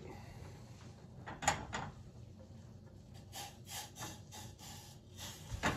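Cookware being handled as gravy is scraped from a cast-iron skillet into a saucepan: soft scrapes and light knocks of metal on metal, with a sharper knock near the end.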